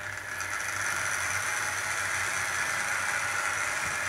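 00 gauge model GWR 5700 class pannier tank locomotive pulling away with its coaches: its electric motor and wheels on the track make a steady whirr with a low hum, building up over the first second and then holding level.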